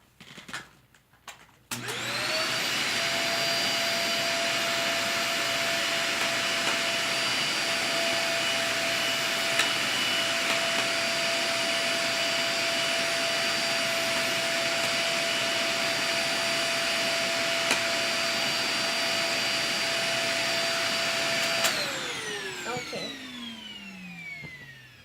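Vacuum cleaner switched on a couple of seconds in, running at a steady high whine with a rush of suction, then switched off near the end, its motor winding down in a long falling pitch.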